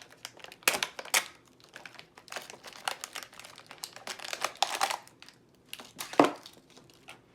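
Toy packaging crinkling and rustling as items are pulled from a mystery toy box, with irregular crackles and a few sharper, louder ones about a second in and again near the end.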